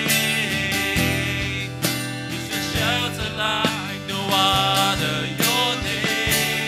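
Live worship band playing a praise song: a man singing into a microphone over acoustic guitar, electric guitar and keyboard, with a regular beat.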